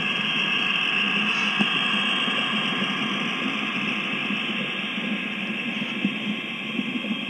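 Model Santa Fe SD26 diesel locomotive and its freight cars rolling past on the layout track: a steady whir of the locomotive's motor and wheels on the rails. It is loudest about a second in and eases off as the boxcars and caboose go by, with a few small clicks near the end.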